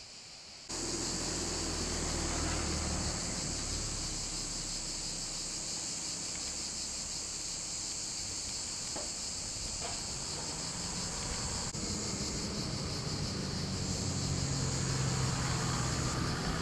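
Cicadas shrilling in a dense, steady chorus, starting abruptly just under a second in, with a low rumble underneath.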